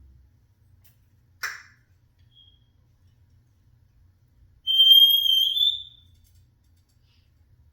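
Congo African grey parrot making a short harsh squawk, then one loud, high, whistled note lasting just over a second that rises slightly at its end.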